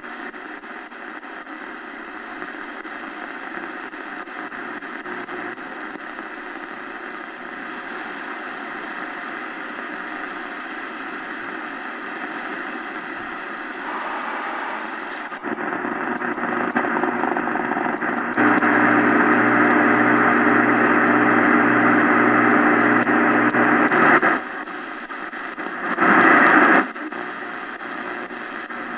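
Shortwave static and hiss from the XHDATA D-901 portable radio's speaker while it is tuned across the band with no station found. The noise steps up in loudness about halfway through, is loudest for about six seconds after that, and jumps up again in a short loud burst near the end.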